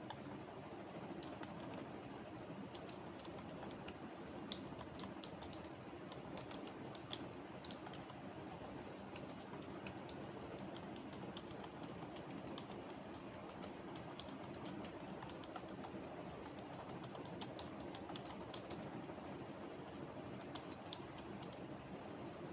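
Computer keyboard typing: irregular runs of key clicks, over a steady low background hum.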